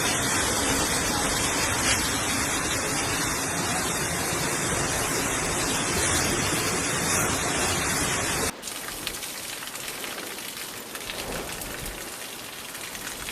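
Heavy rain pouring down in a dense, steady hiss. About two-thirds of the way through it cuts abruptly to quieter, lighter rain.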